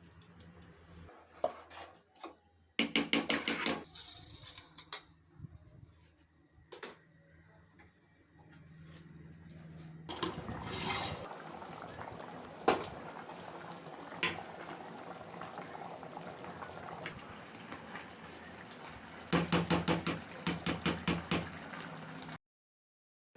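Metal cooking utensils clattering against pots and pans in two quick runs of strokes, with scattered clinks and a steady hiss from about ten seconds in; the sound cuts off suddenly near the end.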